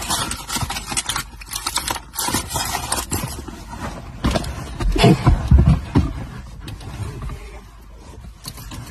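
Rustling and scraping of clothing and fabric as someone moves about inside a car, with many small clicks and knocks. There is a louder stretch about five seconds in.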